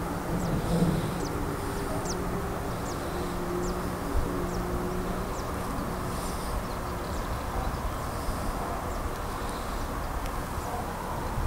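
Steady drone of road traffic with a low engine hum through the first half, and short high falling bird chirps about once a second.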